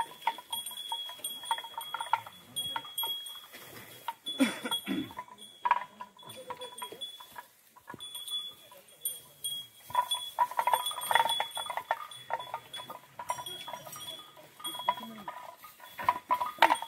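Bells hung from the cows' necks clanking and ringing irregularly as the cattle move and graze.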